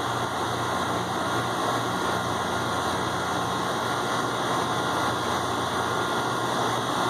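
Walk-in cooler's refrigeration condensing unit running: a steady hum from the compressor over even fan noise. Its pressure reads very low, which the technician takes as a sign it may be low on refrigerant.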